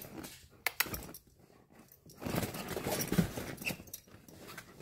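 Airedale terriers moving about on a car's back seat: a few sharp clicks like collar tags and claws, then scuffling with some soft low dog noises in the second half.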